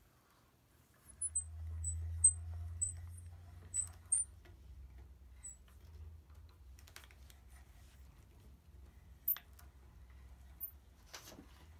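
Hand brace turning an auger bit as it bores into a wooden mallet head: a low rumble from the cutting, with short high squeaks about twice a second over the first few seconds, then quieter scattered clicks.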